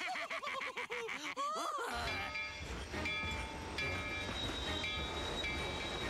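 Cartoon steam train sound effect: about two seconds in, a low chugging rumble starts, and a multi-note train whistle sounds in several blasts over it. Before that, a character's voice is heard.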